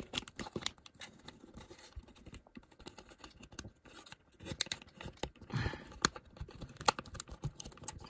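Scattered small clicks, taps and scrapes of hard plastic parts as a DJI Pocket 2 gimbal camera is pried at and handled, in an attempt to free its stuck, glued-in battery.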